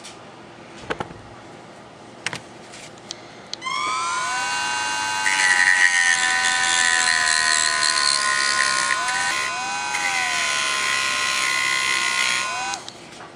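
Handheld rotary tool spinning up with a rising whine about three and a half seconds in, then grinding down the clear plastic stem of a small LED with an abrasive bit. A steady high whine carries a hiss of grinding, its pitch dipping briefly as the bit is pressed in, until the motor is switched off near the end. A few light handling clicks come before it starts.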